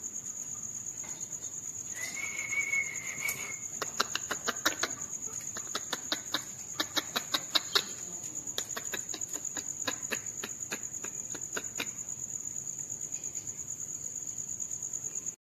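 Insects chirring steadily in a high, fast-pulsing trill. A short high steady tone sounds about two seconds in. A run of sharp clicks follows from about four to twelve seconds in.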